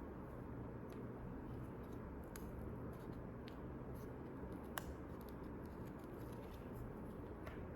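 Faint, scattered small clicks and ticks, about one a second with a sharper one near the middle, over a low steady hum.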